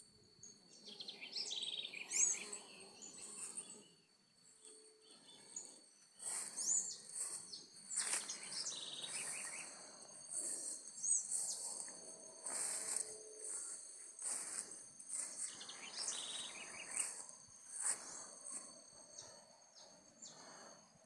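Outdoor nature ambience: insects trill steadily at a high pitch while birds chirp now and then, with swells of rushing noise that rise and fall every few seconds.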